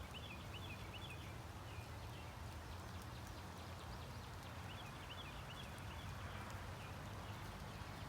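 Faint bird chirping, two short runs of quick wavering notes about four seconds apart, over a low steady hum.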